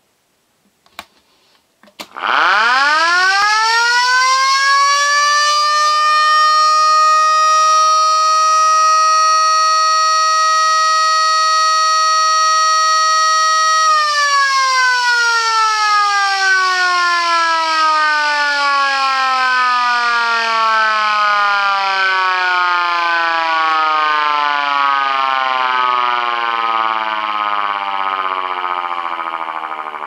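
Helin VS1 electric motor siren on a test run: after a couple of clicks it winds up quickly to a steady wail, holds it for about ten seconds, then winds slowly down, still sounding near the end.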